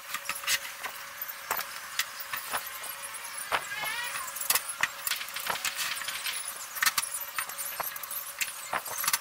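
Knocks and clatter of plywood pieces and tools being handled on a workbench, with a short squeak about three and a half seconds in.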